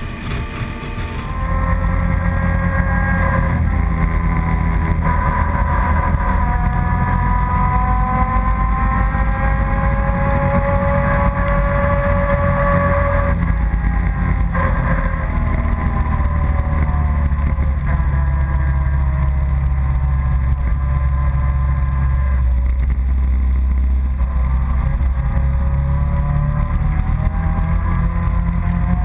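ATV engine running steadily while riding along at road speed, with a whine that slowly rises and falls in pitch; it gets louder about a second and a half in.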